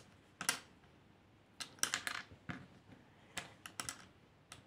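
Sewing buttons clicking and tapping against each other and on a cutting mat as they are handled and stacked: an irregular run of light, sharp clicks, some in quick clusters.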